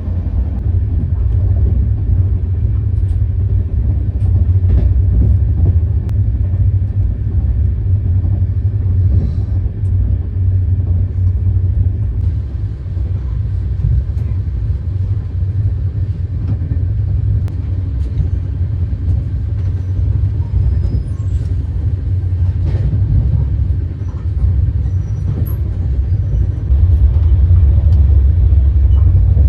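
A moving passenger train running with a steady low rumble, growing louder near the end.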